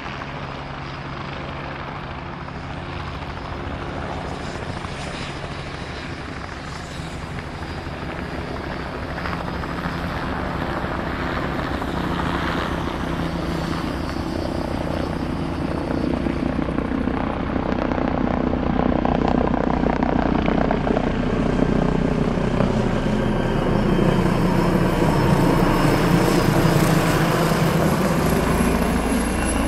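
Leonardo AW169 helicopter, its main rotor and twin Pratt & Whitney PW210A turboshaft engines, approaching to land and growing steadily louder as it descends and comes closer.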